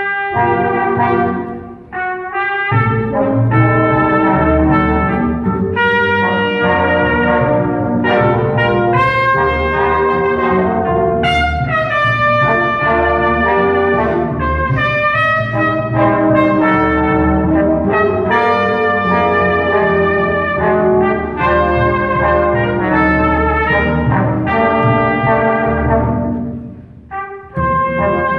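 A small brass band of two trumpets, French horn and trombone, with an upright string bass, playing a tune together. The music drops away briefly about two seconds in and again near the end, between phrases.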